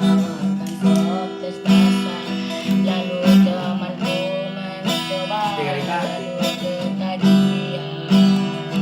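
Music: acoustic guitar strummed in a steady, even rhythm.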